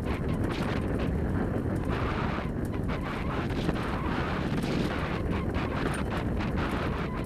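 Steady rumbling noise of a dog-drawn rig rolling along a dirt trail behind the running team, mixed with wind on the microphone, with faint scattered ticks of grit or gear.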